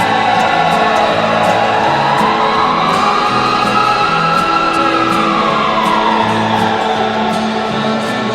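Washington Capitals goal song: music with a steady beat and a bass line, and a long sweeping tone that falls, rises to a peak about halfway through, and falls again.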